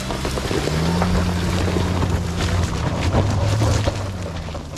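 Mahindra Thar's turbo-petrol engine pulling hard under load as the automatic climbs a rocky slope, swelling about half a second in and easing off near the end. Stones click and crunch under the tyres, with wind on the microphone.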